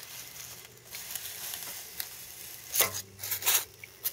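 Hot-wire foam cutter's heated guitar-string wire melting through styrofoam with a faint steady sizzle, the foam crinkling as it is pushed along. About three seconds in come a couple of louder, short scratchy crunches of the foam being handled.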